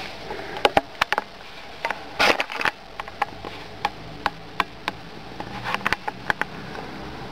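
Pet prairie dog calling with its mouth wide open: a string of short, sharp chirps at irregular intervals. There is a longer call about two seconds in and a quick cluster of chirps near the end.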